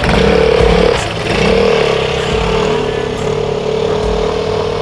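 Vespa scooter's single-cylinder engine running as the scooter pulls away and rides off, its note changing about a second in.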